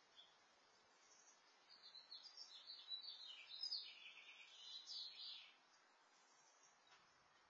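A songbird singing a rapid jumble of high chirps for about four seconds, starting a little under two seconds in, over a faint steady hiss.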